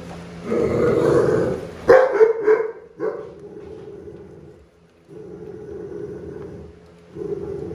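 Pit bull growling over a raw whole fish it is eating. The growl is loud with a few sharp barks in the first couple of seconds, then settles into a steadier growl broken by short pauses.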